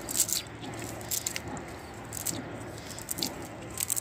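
Wet cast net being lifted and shaken out over mud: its weighted rim clinks and rattles in short irregular bursts, with soft wet squelches.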